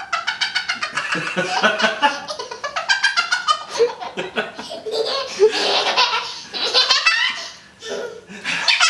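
People laughing hard in long runs of rapid, high-pitched peals, with a short break about eight seconds in.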